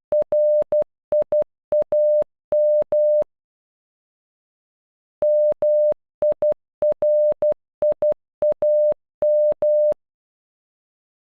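Computer-generated Morse code beeps in one steady mid-pitched tone spelling "MIRIAM" (-- .. .-. .. .- --) in short dots and longer dashes. The end of one pass (R-I-A-M) stops about three seconds in, and after a pause of about two seconds the whole word plays once more.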